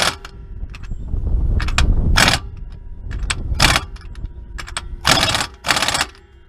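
Metal clinks and scrapes of a socket being worked back onto the rear differential's pinion nut by hand, several sharp strokes, over a steady low rumble.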